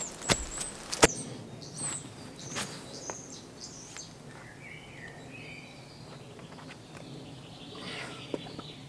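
Forest ambience with small birds chirping, high thin chirps in the first few seconds and lower chirping calls later. A few sharp knocks in the first second, the loudest about a second in.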